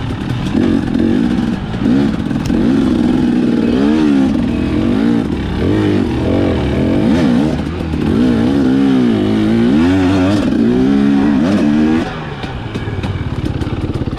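Husqvarna TE250 single-cylinder two-stroke dirt bike engine revving up and down over and over as it is ridden along a trail, with some clatter. Near the end the throttle shuts and the engine drops to a lower, quieter note.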